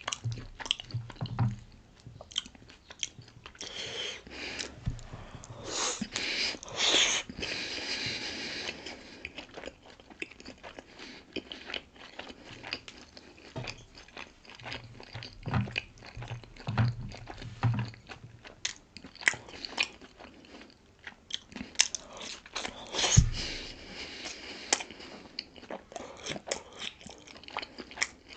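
Close-miked chewing and biting of steamed pork momo dumplings, with irregular wet mouth clicks and smacks and a louder, hissier stretch of chewing several seconds in. A single sharp knock comes about two-thirds of the way through.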